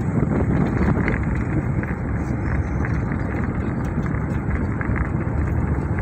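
Steady running noise of a moving vehicle, heard from on board.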